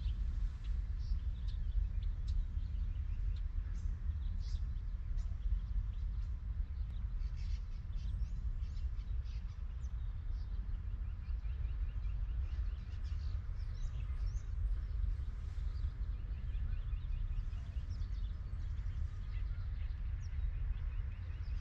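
Songbirds chirping and calling, with a few short rapid trills in the second half, over a steady low rumble.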